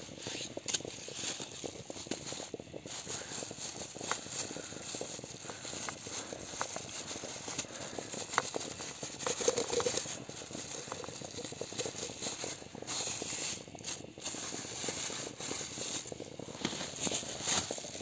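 Wood-fired samovar at the boil: a steady, dense crackling and rattling, with a few sharper clicks and knocks.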